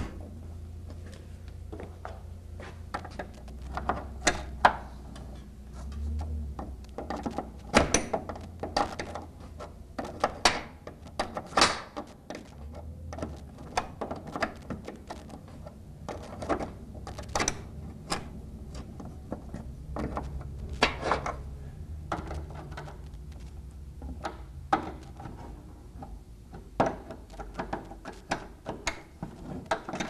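Wrench tightening the nuts on a steel garage-door hinge that carries a newly replaced roller: irregular sharp metal clicks and knocks, over a low steady hum.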